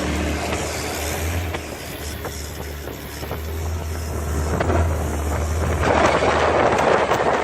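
Boat engine running steadily, with wind and water rushing past. About six seconds in the wind buffeting on the microphone grows louder.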